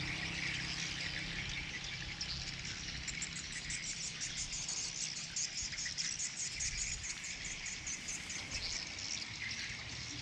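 Insects chirping steadily in high, rapid pulses, with a low steady rumble underneath.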